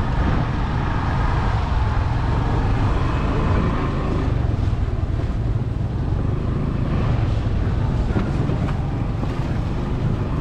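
Motorcycle running steadily on a ride, with wind rumbling on the microphone.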